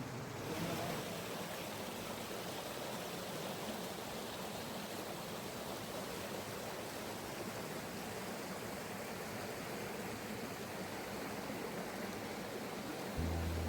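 Steady rushing of creek water. Just before the end a low, steady hum begins.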